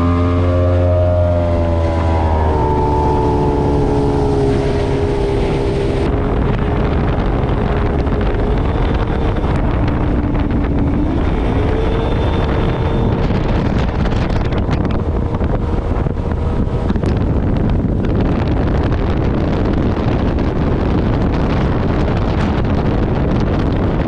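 Mariner 200 outboard motor driving a bass boat at speed. Its pitch rises over the first couple of seconds and steps up again about eleven seconds in. In the second half, wind on the microphone and rushing water increasingly cover the engine.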